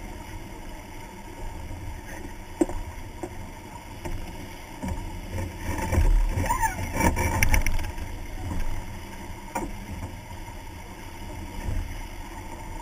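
Wind buffeting the microphone and water rushing along the hull of a sailing yacht moving fast under spinnaker, with a sharp knock about two and a half seconds in and louder gusts from about five to eight seconds in.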